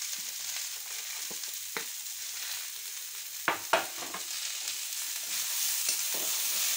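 Potato and radish sticks sizzling in hot mustard oil in a metal kadai while being stirred. About three and a half seconds in come two sharp metal clacks, the spatula striking the pan.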